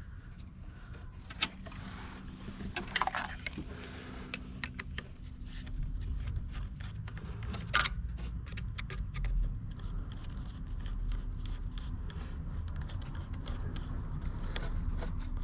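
Light metallic clicks, scrapes and rattles of intake parts and hand tools being handled during the fitting of a cold air intake, the clicking getting denser in the last few seconds, over a low steady hum.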